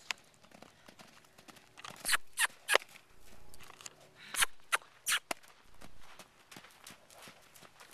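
A Friesian-Saddlebred cross horse moving over arena sand, with sharp clicks in two short runs of three or four, about two seconds in and again about four and a half seconds in.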